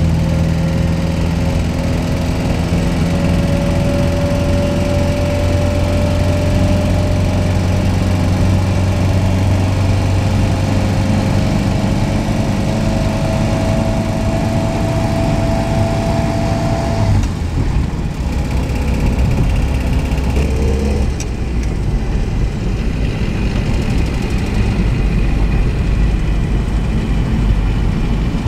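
Car engine running with a slowly rising pitch. Its note changes abruptly about two-thirds of the way through and shifts again shortly after.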